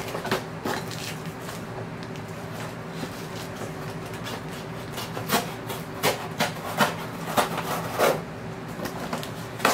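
Scissor blade slitting the packing tape along the seams of a cardboard record mailer box: scratchy scraping and tearing strokes, sparse at first and coming quickly in the second half, over a faint steady hum.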